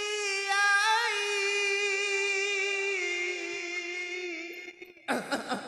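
A man sings one long held note through a microphone, ornamented with wavering turns, in the style of a sholawat chant. The note fades out about four and a half seconds in, and a new sung phrase starts loudly about five seconds in.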